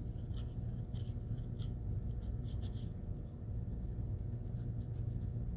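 Ball-tip embossing tool scratching and rubbing in short strokes over aluminium HVAC duct tape as the raised letters are refined. The ball drags dry across the tape surface with no oil to lubricate it. A steady low hum runs underneath.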